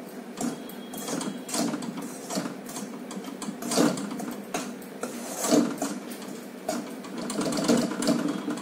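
A spatula scraping and stirring wheat flour around a kadhai (Indian wok) in quick, irregular strokes, a few of them louder. The flour is being slow-roasted in ghee over a low flame and has turned brownish.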